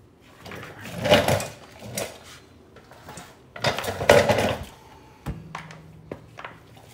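Metal hand tools clattering and clinking as they are handled, in two bursts about three seconds apart, followed by a short low hum near the end.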